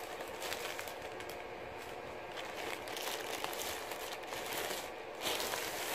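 Black plastic parcel wrapping crinkling and rustling as it is handled and opened, in irregular louder bursts.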